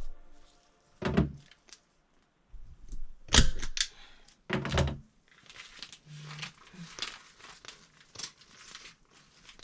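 Hands-on work noises: a few sharp knocks, then rustling and crinkling as material is handled.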